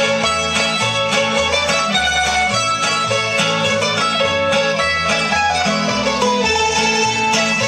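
Lively folk dance music played on plucked string instruments over a steady, regularly changing bass line, accompanying traditional dancing.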